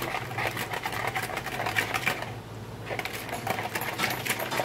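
Wire whisk beating a yogurt, sugar and oil batter in a bowl: a fast, rhythmic clicking and swishing of the wires against the bowl, with a short pause a little past halfway.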